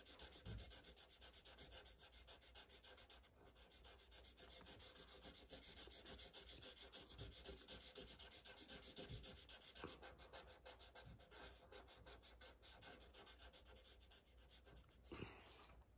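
Black Sharpie permanent marker scribbling back and forth on paper as a small shape is coloured in solid: a faint, rapid scratching of the felt tip, with a brief pause about three seconds in.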